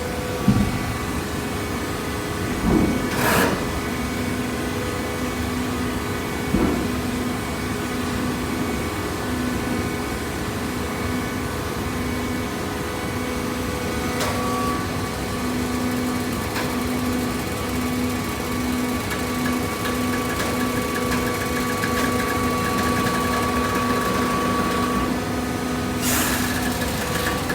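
Hydraulic cardboard baler running: a steady motor-and-pump hum with a faintly pulsing tone. A few sharp knocks come in the first seven seconds and one near the end, and a thin higher whine sounds through the middle of the stretch.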